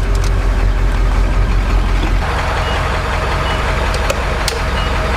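Truck engine running, heard from inside the cab as a low rumble. About two seconds in it gives way to a thinner engine idle at a fuel pump, with a couple of sharp clicks.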